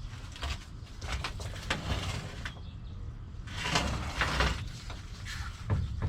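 Old car parts and junk being handled and moved: a string of irregular knocks, clatters and scrapes, with a longer, louder scrape from about three and a half to four and a half seconds in.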